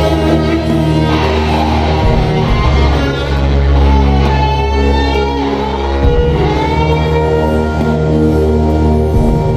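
Live ambient electric guitar music: held, layered chords over a deep sustained bass tone, the chord changing every few seconds, with higher gliding tones rising over it twice.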